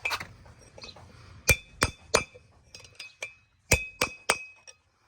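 Hammer striking a brass punch to drive a tapered roller-bearing race out of a brake rotor hub: about a dozen sharp metallic blows with a ringing note, struck in uneven groups of two to four.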